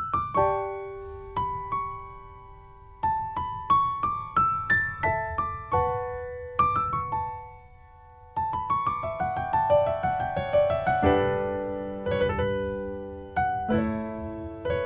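Slow, gentle piano music: single struck notes that ring and fade in a melody, with one note left to die away a little past halfway, then fuller, lower chords toward the end.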